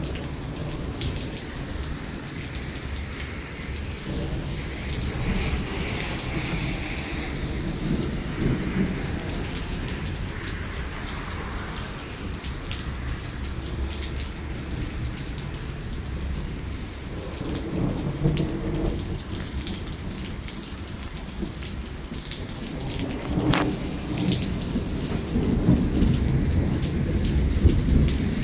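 Heavy rain pouring onto wet pavement: a steady hiss with scattered close drip ticks. Low rumbles of thunder run underneath and grow louder near the end.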